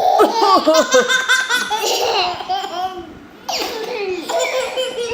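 A baby laughing in belly-laugh bursts, set off by his twin brother's deliberate coughing; one bout runs for about three seconds, and a second starts about three and a half seconds in.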